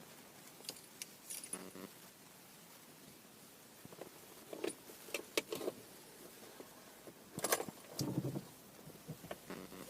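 Irregular clicking and rattling in short bursts inside a Renault Mégane II at start-up, the noise the owner attributes to the climate control's air-distribution flap actuator (répartiteur).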